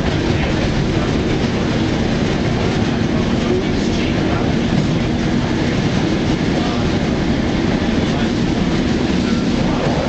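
PCC streetcar running along its track, a steady rumble of wheels on rails and running gear, heard from inside the cab.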